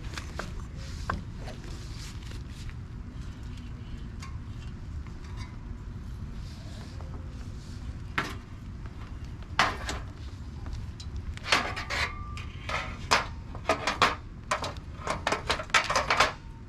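Irregular knocks and clanks from the parts of a metal patio table being handled and tightened during assembly, starting about halfway through and coming thick and fast near the end, over a steady low rumble.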